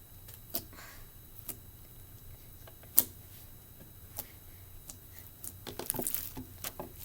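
Jelly slime being squished and stretched close to the microphone, giving scattered sharp clicks and pops, one louder pop about three seconds in and a quick run of crackling clicks near the end.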